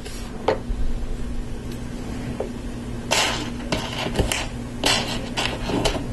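Loose plastic LEGO Technic pieces clicking and clattering as a hand picks through the pile of parts on a table: a scatter of short clicks with two brief rummaging clatters, over a faint steady low hum.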